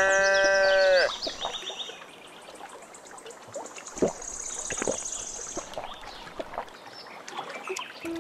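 A calf bawls once at the start: a single loud, steady, high-pitched call lasting about a second. After it the sound is much quieter, with a fast high-pitched trill around the middle and a few faint knocks.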